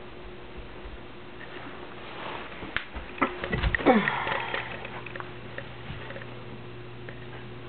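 Camera handling noise with scattered clicks and rustling while the camera is carried between tanks, loudest about four seconds in, where a short squeak falls quickly in pitch. A steady low hum runs underneath.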